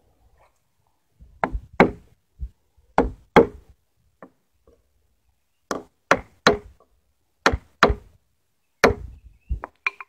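A chisel chopping into the corner of a white pine tenon: about a dozen sharp knocks, mostly in pairs, with short pauses between the groups.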